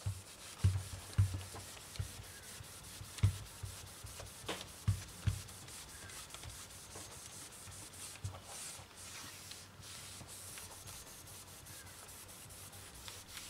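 Microfiber cloth rubbed over a laptop's LCD screen, wiping off glass cleaner, with a few soft knocks in the first five seconds or so as the hand presses on the panel.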